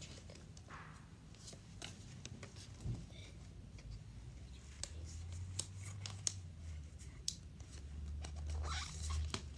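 Pokémon trading cards handled in the hands, slid one behind another as the stack is fanned, giving soft scattered clicks and rustles. A low rumble comes twice, about halfway through and near the end.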